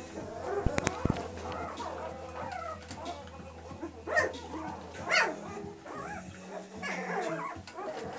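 A litter of two-week-old puppies whimpering and squeaking, many short wavering whines overlapping, with a few louder cries partway through. A few sharp clicks about a second in.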